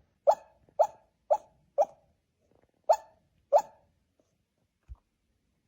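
A dog barking six times in short sharp barks, four in quick succession about half a second apart and then two more after a short pause. A faint low thump follows near the end.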